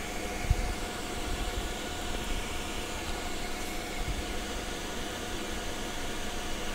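Steady background hum and hiss of a room, like a running fan, with a soft low knock about half a second in and another about four seconds in as wires are handled on the bench.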